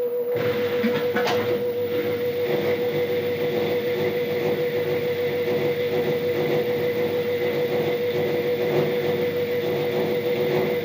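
LG F1296WDS washing machine running, with a steady whine and a continuous rattling vibration at its right side panel. The owner likens the rattle to a badly screwed-on panel, although the machine is levelled and it does the same with no laundry inside.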